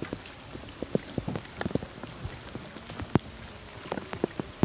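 Scattered water drops and small splashes: sharp ticks at irregular intervals, a few each second.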